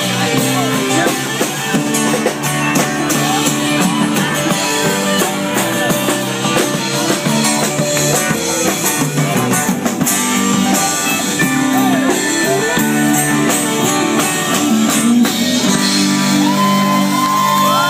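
A live band playing a rock song: acoustic guitar and drum kit, with a voice singing over them.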